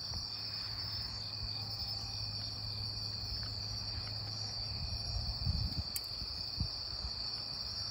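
Night insects trilling steadily at a high pitch, with a low steady hum beneath and a couple of soft low knocks around five and six seconds in.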